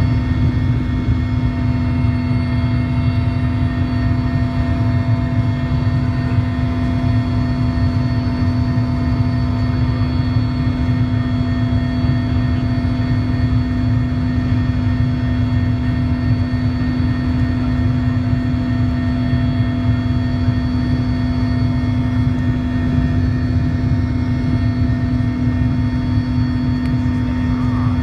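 Cabin noise of a Mil Mi-17 helicopter in steady cruise: the twin turboshaft engines, main rotor and gearbox run as a loud, unchanging drone. A strong steady hum and several fainter high whining tones sit over a deep rumble.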